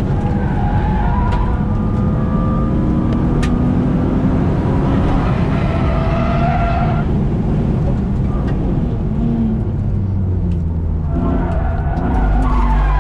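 Car engine heard from inside the cabin, running under load through corners, with tyres squealing for the first several seconds and again near the end.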